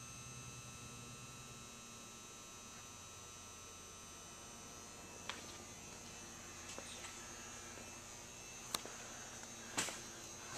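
Quiet steady electrical hum, with a few faint clicks about halfway through and near the end.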